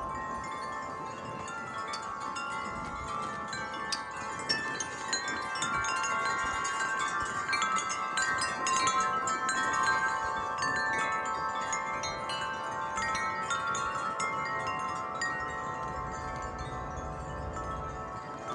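Wind chimes ringing in the wind: many overlapping tones hang on while the tubes keep striking again, swelling louder around the middle. A low wind rumble joins near the end.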